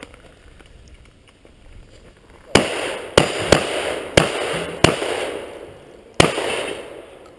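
Six shotgun shots, starting about two and a half seconds in: five in quick, uneven succession, then a last one after a pause of more than a second. Each shot is followed by a short echoing tail.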